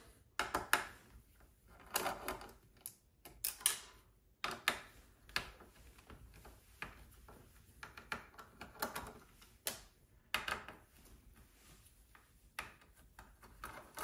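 Hand screwdriver turning screws out of a computer's sheet-metal chassis: irregular small clicks, short scrapes and light taps.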